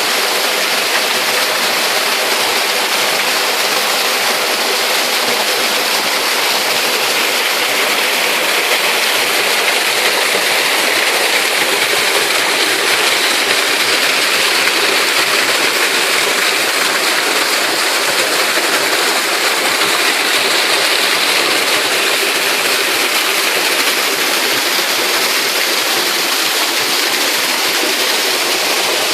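Waterfall: falling water rushing and splashing in a loud, steady roar of noise.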